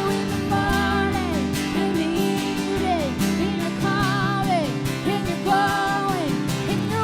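Worship band music: steady acoustic guitar chords under a singing melody line with wavering held notes and downward slides.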